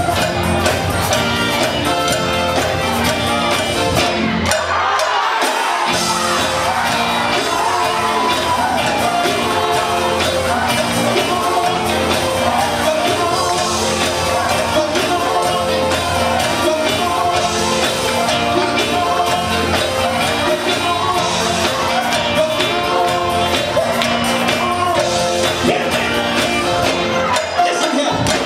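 Live gospel quartet singing with several voices over an electric band of guitars, drums and keyboard. The bass drops out briefly about five seconds in and again near the end.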